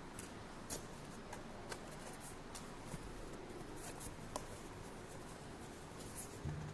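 Hands handling small objects and packaging: scattered light clicks and rustles, with a soft low thump near the end.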